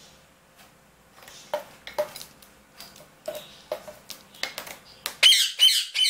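Indian ringneck parakeet rummaging among its toys in a plastic basket, with a few scattered sharp knocks and clicks, then breaking into a loud run of harsh squawks about five seconds in.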